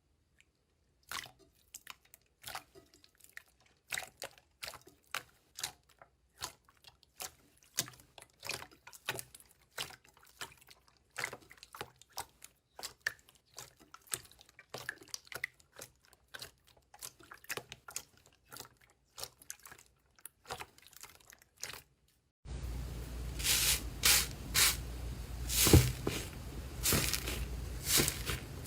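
Slime being squeezed and pressed by hand, giving a stream of sharp wet clicks and pops at an irregular rate. About 22 seconds in, the sound switches to a louder recording with a steady hiss under stronger pops.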